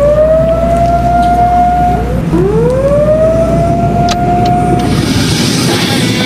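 A vehicle motor sound goes with the toy crane truck: two whines each climb in pitch and then hold steady for about two seconds, over a steady low rumble. The second whine starts just after the first stops.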